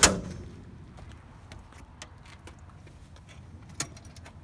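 A sheet-metal generator enclosure door slams shut with a sharp bang that rings and fades over about half a second. A few light footsteps follow, then a single click near the end as the OFF/ON switch on the generator's control panel is turned.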